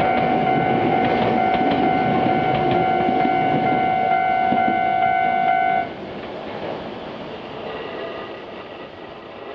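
Iyotetsu 3000 series electric train running past, with a few clicks from the wheels over the rail joints and a loud steady high-pitched tone. The tone cuts off suddenly about six seconds in, leaving quieter running noise that fades away.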